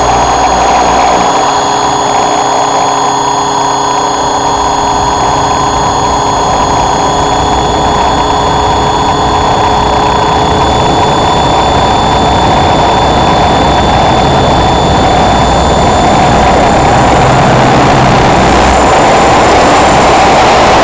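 Raptor E550S electric RC helicopter in flight, its motor and rotor giving several steady high whines over a constant rushing noise. Low rumble drops out about a second in and returns later, and the rush grows slightly louder toward the end.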